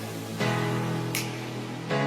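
Background music: strummed guitar chords with a steady beat.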